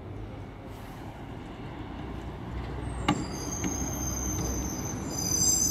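Articulated city bus approaching, its engine and tyre rumble growing louder. About three seconds in there is a click, followed by a high, multi-pitched squeal that holds to the end.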